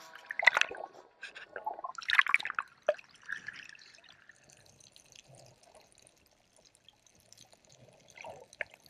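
Water splashing and dripping in irregular bursts, busiest in the first three seconds and then fainter, with a short splash near the end.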